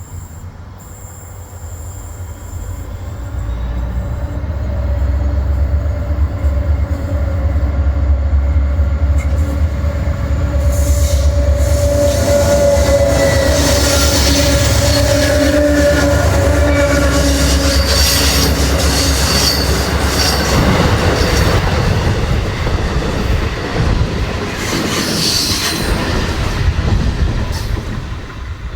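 Freight train hauled by the diesel locomotives C502, CLP9 and CLF3 passing: the engines' deep drone builds up a few seconds in, then high-pitched wheel squeal and clatter on the rails as the wagons go by, dying away near the end.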